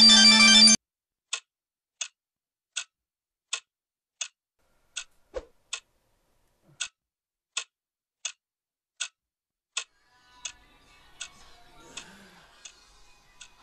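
A smartphone ringtone cuts off abruptly just after the start. Then a clock ticks steadily, one sharp tick about every 0.7 seconds, with faint music entering in the last few seconds.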